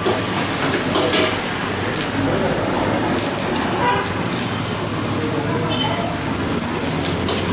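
Egg fried rice sizzling steadily in a steel wok over a gas flame, with a few short clinks and scrapes of the metal ladle.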